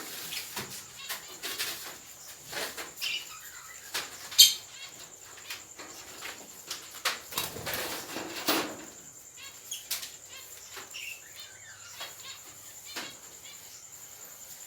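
Caged birds in an aviary fluttering their wings and chirping, with scattered short sharp knocks. The loudest knock comes about four seconds in.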